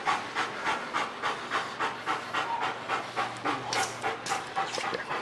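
A dog panting hard in quick, even breaths, about three a second.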